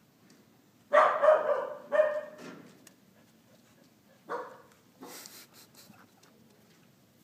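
A dog barking: a quick cluster of barks about a second in, another bark about two seconds in, and a single bark a little after four seconds.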